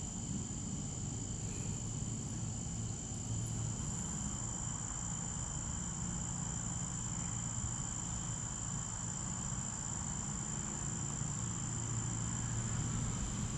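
Steady, high-pitched insect chorus of crickets, with a low hum underneath.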